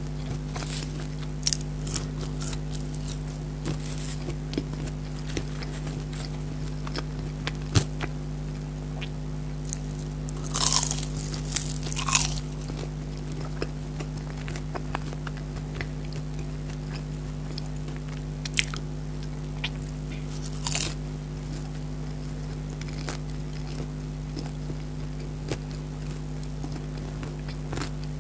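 Close-miked eating: biting and chewing of crisp fried food, with many small crunches and a few louder crunchy bites about ten seconds in and again near twenty seconds, over a steady low hum.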